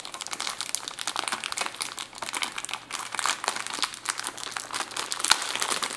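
Clear plastic bag crinkling and rustling as hands pull and work it off a flat electronic unit, a fast irregular run of crackles throughout.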